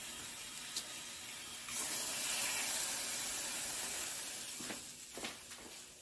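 Egg frying in a small nonstick pan on an electric coil burner: a steady sizzle that swells about two seconds in and dies down near the end, with a couple of light knocks.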